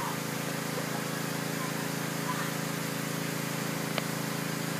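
A steady low machine hum at one unchanging pitch.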